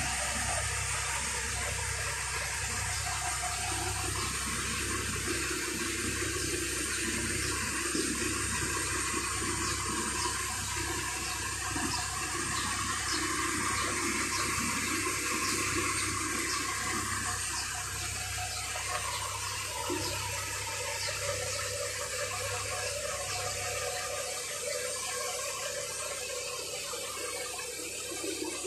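Seawater streaming and dripping off a freshly hauled-out yacht hull crusted with barnacles, a steady rush of water with fine drips. A low steady hum runs underneath and fades out near the end.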